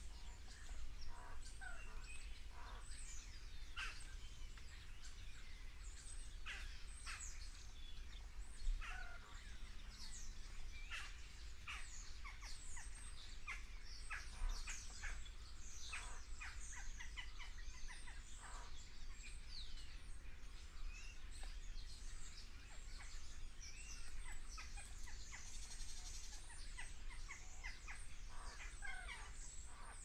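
A flock of small birds in a leafy tree chirping and calling all at once, a continuous overlapping chatter of short, quick calls. A steady low rumble runs underneath.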